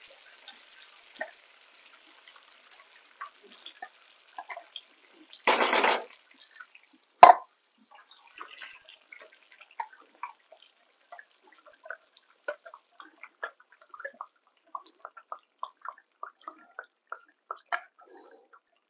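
Condensed cream of chicken soup being poured from cans over chicken in a hot buttered skillet, dripping and plopping with faint sizzling. A short loud rush of noise comes about five and a half seconds in and a sharp knock a second later, then small irregular drips and pops.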